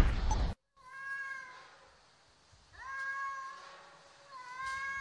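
Two cats yowling at each other in a standoff over a female: three long, level yowls of about a second each. A loud noisy burst cuts off about half a second in, before the first yowl.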